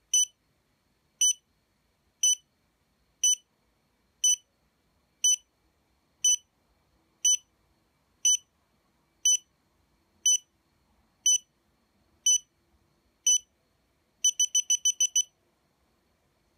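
Xiaomi Yi action camera's built-in beeper sounding short high beeps about once a second while its firmware update runs, then a quick run of about seven beeps near the end as the update finishes.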